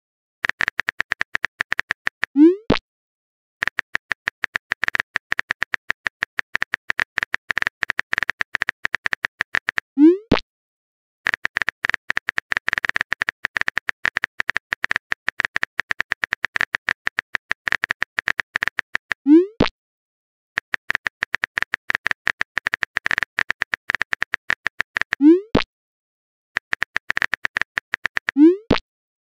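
Phone-keyboard typing sound effect: long runs of rapid clicks, stopping each time a message is sent. A short rising pop sounds as each new message bubble appears, five times.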